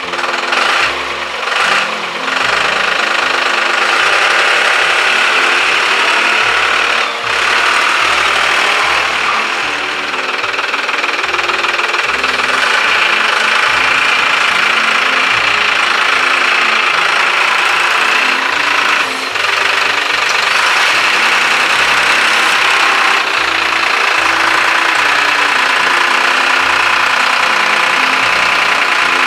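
Background music with a bass line that steps from note to note, over a dense, steady upper layer.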